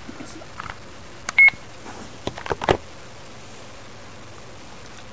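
Digital camcorder giving one short, high beep about a second and a half in as its buttons are pressed, with a few soft button clicks and handling knocks before and after.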